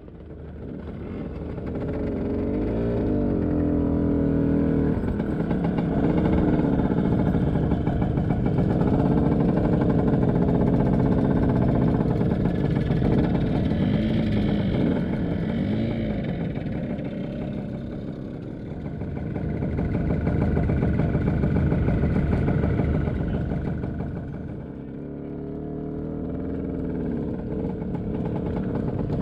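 Scooter engine heard from the bike itself while it rides slowly over grass, the revs rising and falling again and again as the throttle is worked. It fades up over the first couple of seconds.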